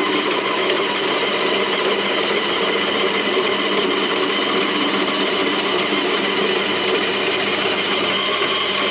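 Small electric kitchen grater or shredder motor running steadily while cutting carrots: a continuous hum with a steady whine over it.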